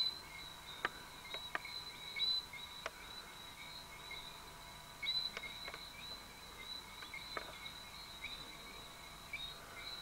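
Steady high-pitched chorus of forest insects, a continuous shrill trill with a fainter lower band beneath it. A few short sharp clicks are scattered through it.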